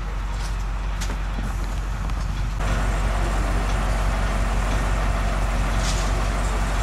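Steady low hum of an idling vehicle engine. About two and a half seconds in, the sound abruptly turns louder and hissier, then holds steady.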